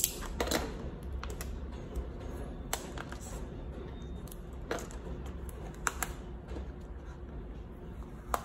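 Scattered light clicks and taps from handling on a tabletop as a craft knife trims a vinyl sticker and is set down, and the sticker pieces are peeled and pressed, over a low steady hum.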